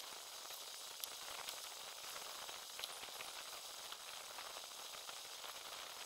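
Faint, steady hiss with a few light ticks scattered through it.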